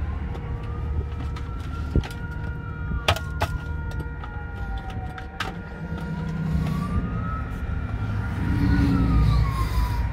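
Wailing emergency-vehicle siren, rising and falling slowly about twice, over the steady low rumble of road traffic. A few sharp cracks stand out in the first half.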